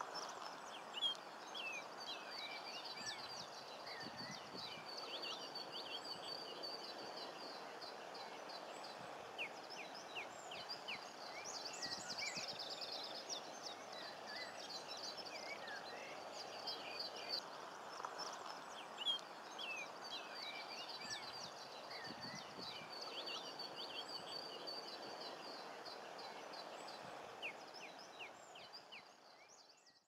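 Many birds chirping and twittering, with a rapid high chattering trill running through much of it, over a steady low background noise. The sound fades out near the end.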